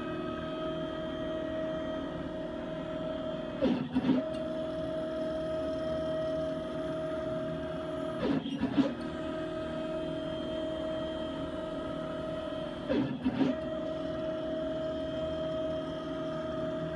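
Hitachi M12VC 2¼ hp router, serving as the spindle of a rack-and-pinion CNC router, running flat out at 24,000 RPM during an air cut with no material being cut. Over it runs the machine's steady drive whine, which breaks off briefly with a few clicks three times, about four and a half seconds apart, as the moves change.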